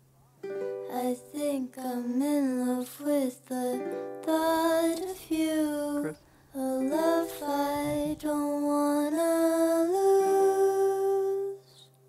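Background song: a voice singing a slow melody over soft plucked-string accompaniment and a steady low drone, stopping just before the picture fades out.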